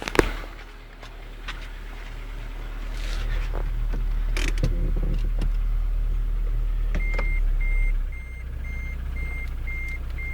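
Car engine running under load, louder from about two seconds in and easing off near the eighth second, after a sharp click at the start. This is the engine that knocks after spun crank bearings and a crankshaft replacement; the knock is loud under load when cold. From about seven seconds a reversing parking sensor beeps evenly, about two beeps a second.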